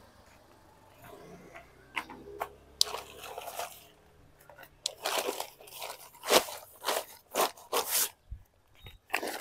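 Crinkling, rustling strokes of a tent's nylon flysheet and tarp groundsheet being handled and smoothed out, about six or seven in a row over the second half, after a few scattered clicks.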